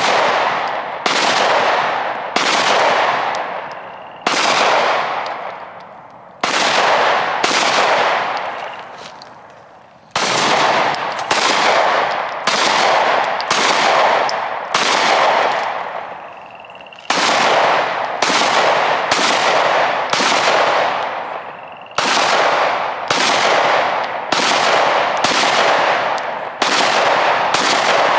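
Slow, steady gunfire: about two dozen single shots, roughly one a second with a few longer pauses, each trailing a long echo that fades over a second or two. A faint ringing tone follows a few of the shots.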